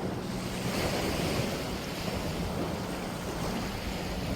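Small sea waves washing onto a sandy beach, with wind on the microphone; the wash swells briefly about a second in.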